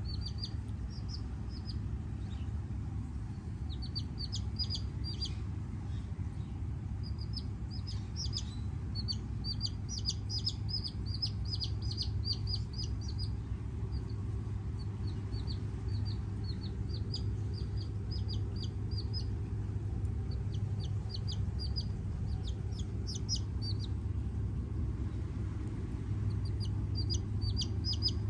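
Silkie chick peeping: runs of short, high peeps, several a second, broken by pauses, with a longer lull a few seconds before the end. A steady low rumble lies underneath.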